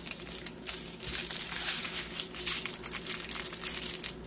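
Small clear plastic bags of diamond-painting drills crinkling as they are handled and laid out in a row, in dense crackly rustles that pause briefly and ease off near the end.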